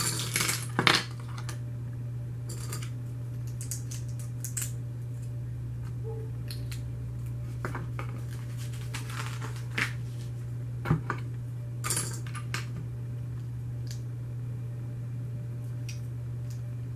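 Plastic Lego bricks being handled and pressed together: scattered sharp clicks and short rattles of loose pieces, over a steady low hum.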